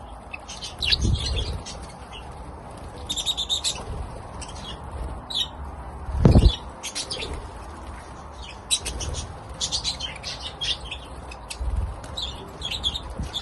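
A flock of budgerigars chattering with many short high chirps, with wings flapping. A few low thumps, the loudest about six seconds in.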